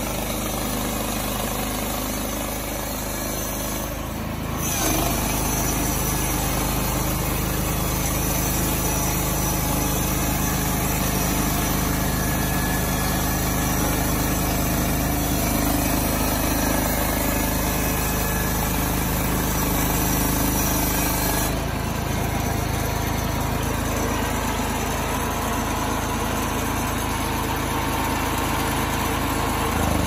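Portable band sawmill running: its 15 hp Ducar engine runs steadily while the band blade saws through a board. The sound gets louder about four and a half seconds in and shifts again about three quarters of the way through.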